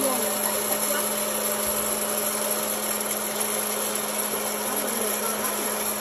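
Electric popcorn machine running with a steady motor hum.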